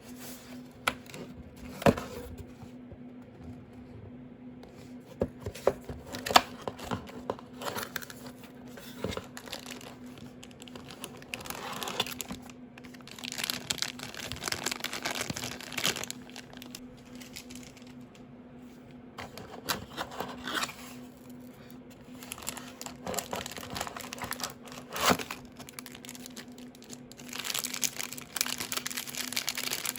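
Keyboard packaging being handled and unwrapped: plastic and paper crinkling and tearing in stretches, with a few sharp knocks, over a steady low hum.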